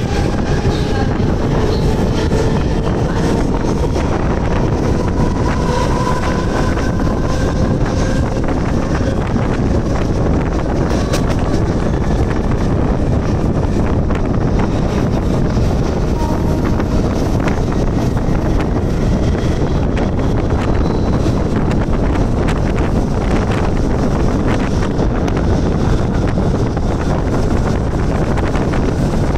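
Mumbai harbour-line local train running, with loud, steady wind noise on the microphone. A faint whine from the train slowly rises in pitch over the first several seconds.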